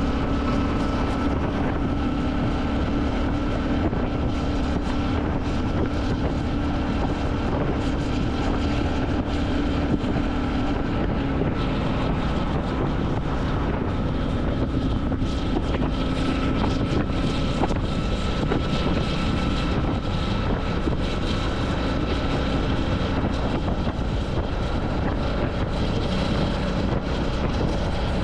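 Royal Enfield Classic 350 single-cylinder engine running steadily while riding, with wind noise on the microphone.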